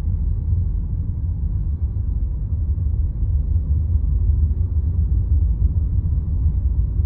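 Steady low rumble of a car driving along a paved road, heard from inside the cabin.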